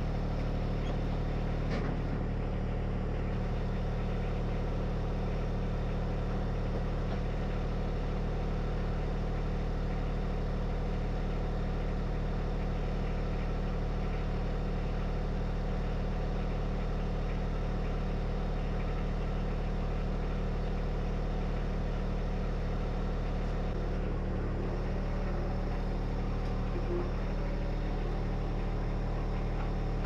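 John Deere 1025R compact tractor's three-cylinder diesel engine running at a steady speed, with no revving.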